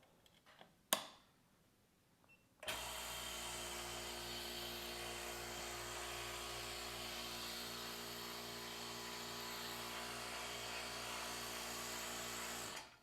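Phone-screen lamination machine running: a click about a second in, then a steady hum with a hiss starts abruptly, holds even for about ten seconds and stops.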